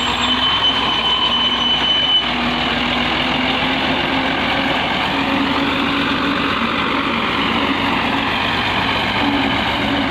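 Farm tractor's diesel engine running steadily under load as it pulls a tine cultivator through the soil. A thin high-pitched tone sounds over the first two seconds.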